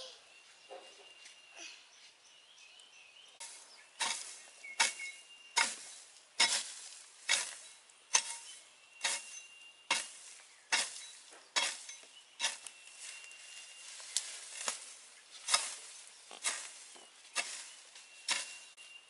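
A hand garden tool striking soil and plants in a steady rhythm, a little more than one stroke a second, starting about three and a half seconds in.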